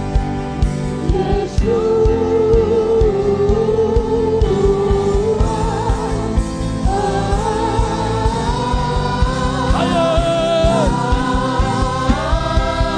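Gospel worship music: a single voice sings a drawn-out, wavering melody over held instrumental chords and a steady drum beat.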